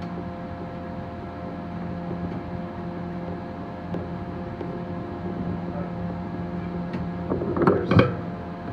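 A steady machine hum holding several fixed tones, with a short burst of clattering knocks about seven and a half seconds in.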